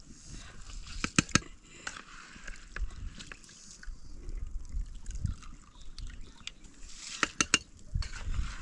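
A metal spoon scooping wet rice out of a plastic bowl and tipping it into a pot of water: wet sloshing and plopping, with a few sharp clicks of the spoon on the rims about a second in and again near the end.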